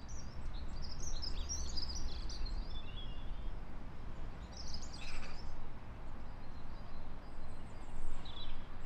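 Small songbirds chirping and twittering in quick high bursts over a steady low rumble. The chirps cluster in the first few seconds, come again about five seconds in, and once more near the end.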